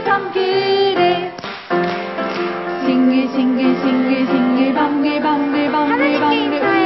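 A worship song: voices, a woman's among them, singing a melody over instrumental backing, with a short break between phrases about a second and a half in.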